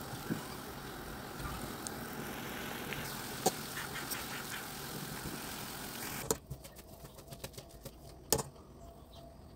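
A pot of water at a rolling boil with noodles in it, bubbling with a steady hiss, with a few sharp clicks about three and a half and four seconds in, as the noodles are stirred. About six seconds in it cuts to a much quieter stretch of small ticks and clicks, with one sharper knock near the end.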